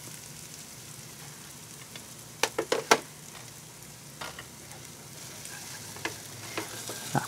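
Eggplant and corned beef frying with a steady, quiet sizzle in a white-coated frying pan, broken by sharp clicks of wooden utensils on the pan: a quick cluster a little past two seconds in, then single clicks now and then as the food is stirred.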